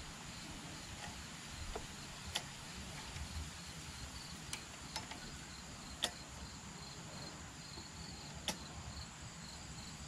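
A handful of small sharp clicks and taps as a choke flap and its spring are handled and refitted on a Briggs & Stratton Quantum mower engine's carburetor. Behind them, insects chirp in a steady pulsing rhythm.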